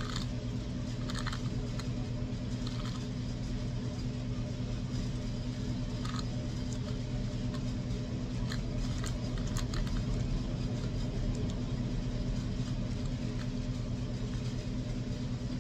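Faint clicks and taps of hard plastic parts being handled as a bumper piece is worked back onto a radio-controlled truck, over a steady low hum.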